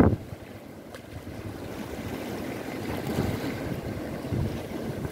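Sea waves washing against the jetty's rocks, with wind on the microphone; a brief loud rush right at the start.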